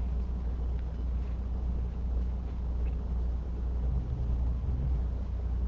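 Steady low hum of room noise.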